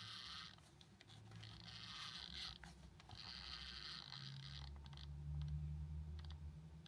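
Plastic dial of a mechanical timer plug being turned by hand, scraping quietly in three short spells, turning the pointer round to the 16:00 mark.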